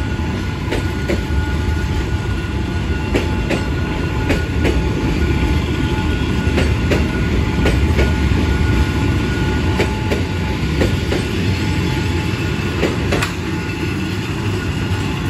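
A long freight train of covered boxcars rolling slowly past close by: a steady heavy rumble from the wheels, with irregular clacks as the wheelsets pass over rail joints.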